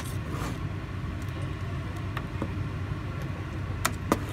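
A metal ladle stirring thick curry in a metal pot, clinking sharply against the pot a few times, with two close clinks near the end. A steady low hum runs underneath.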